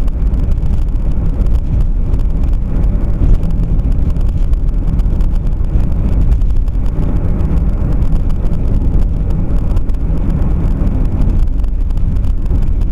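Steady low rumble of car and road traffic noise, with wind buffeting the microphone.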